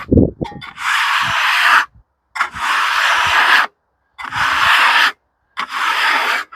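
A hand scraper dragged across the freshly sawn face of a white oak slab, about four long rasping strokes a second or so each with short pauses between, clearing the sawdust to show the grain.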